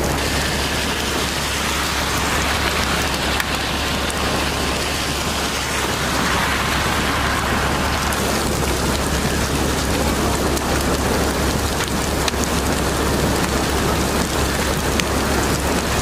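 Heavy thunderstorm rain pouring steadily onto wet pavement, a dense even hiss with scattered sharper ticks of drops and a steady low rumble underneath.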